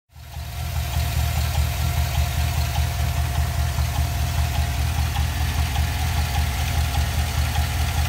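2007 Chevy Silverado's 4.8 L Vortec V8 idling with a steady tick that keeps time with engine speed, which the owner puts down to the valve train, suspecting a bad lifter. A steady thin whine rides over the engine note.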